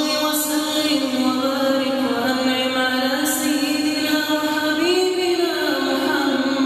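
A solo voice chanting a melodic Quranic recitation, drawing out long held notes that glide slowly up and down.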